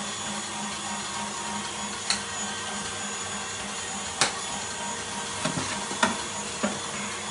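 A steady mechanical hum and hiss, broken by five short, sharp clicks spread through the second half.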